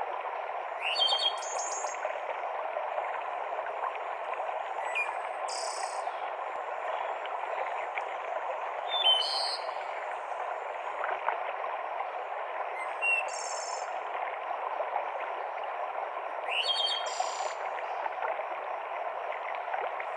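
Steady rushing of a forest stream cascading over rocks, with a songbird's short chirping phrases about every four seconds.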